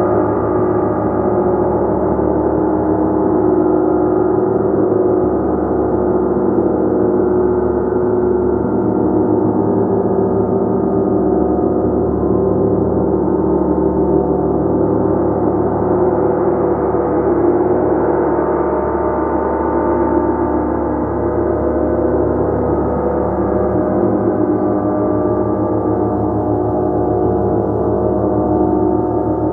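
Gong played continuously, a steady, dense wash of many overlapping ringing tones with no single strike standing out.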